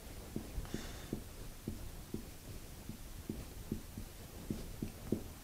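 Felt-tip marker writing on a whiteboard: soft, irregular taps and strokes, about two or three a second, with a faint scratchy squeak about a second in.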